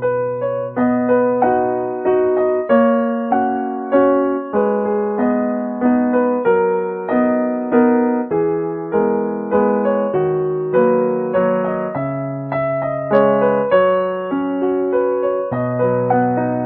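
Background piano music: a melody of single struck notes that ring and fade, one after another at an even pace.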